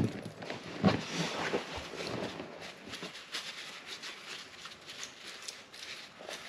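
Handling of a small metal baitcasting reel: a sharp knock at the start and another about a second in, then a couple of seconds of crinkly rustling of tissue paper being handled, with light clicks and rustles after.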